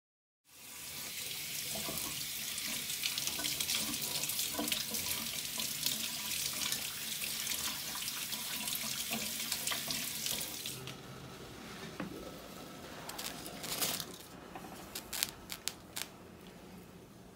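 Water running steadily from a kitchen tap for about ten seconds, then shutting off, followed by a handful of light clicks and knocks.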